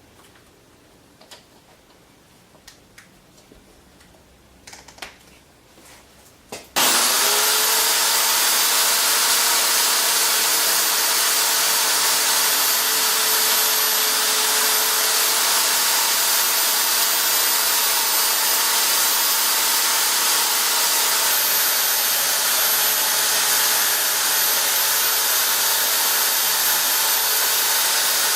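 A power tool working wood: a few small clicks, then about seven seconds in it switches on suddenly and runs loud and steady with a constant high whine.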